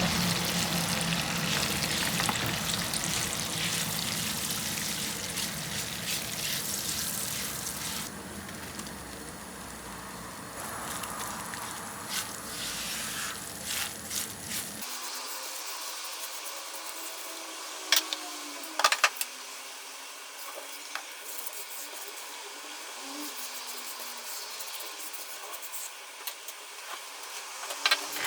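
Fat sizzling in a frying pan while it is stirred. The sizzle is louder at first and quieter from about a third of the way through, with a few sharp clicks past the middle.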